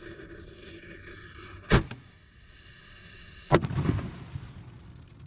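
Consumer firework shell exploding inside an HDPE mortar tube in a wooden rack. After a steady hiss, a sharp bang comes about two seconds in, then a louder bang nearly two seconds later followed by a brief crackle.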